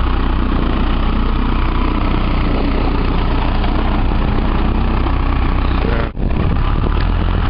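Case 40XT skid steer's diesel engine running steadily, with a brief break in the sound about six seconds in.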